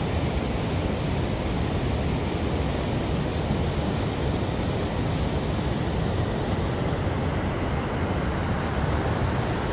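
Steady rushing of dam tailwater flowing down a concrete channel, an even noise with no separate events.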